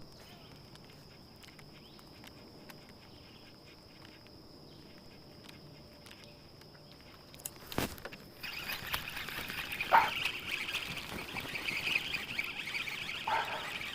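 Insects calling: a steady high-pitched trill, with a louder, dense buzzing chorus joining in about eight seconds in. A single sharp click comes just before the chorus.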